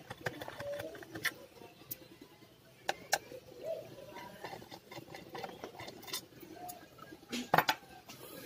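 Scattered light clicks and taps of a screwdriver turning out the small screws of a laptop's hard-drive caddy. A sharper clatter of clicks about seven and a half seconds in as the screwdriver is laid down.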